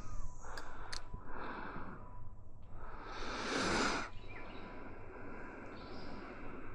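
Casting a fishing rod and reel: two sharp clicks in the first second, then a rushing hiss that swells and fades about three seconds in.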